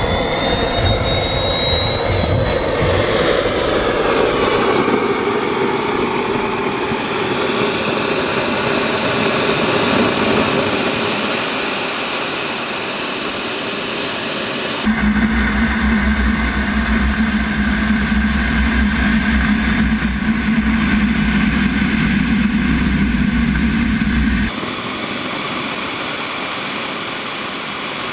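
Jet turbine engine running at high power: a steady roar with a high whine that climbs in pitch, blasting hot exhaust straight down onto a laptop. The sound changes abruptly about 15 and 24 seconds in, and is quieter in the last few seconds.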